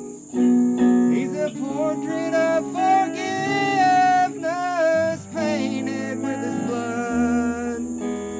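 Stratocaster-style electric guitar playing a lead line, with long bent and wavering notes about halfway through, over low held notes.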